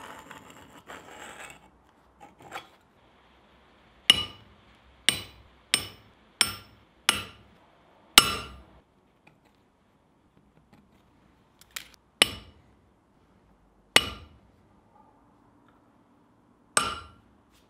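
Small hammer tapping a center punch on a cold steel bar clamped in a vise, marking points along a scribed line. About ten sharp, ringing metallic strikes at uneven intervals, after a brief scraping at the start.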